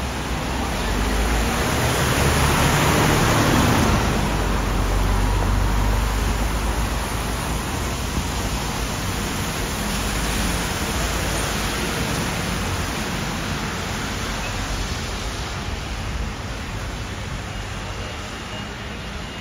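Steady city traffic noise with a low rumble. It swells a couple of seconds in as a vehicle passes close, then slowly eases.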